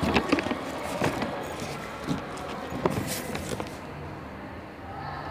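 Handling noise from a phone being moved about: a few sharp knocks and clicks, clustered at the start and again about one and three seconds in, with a brief rustle near three seconds, over steady background noise.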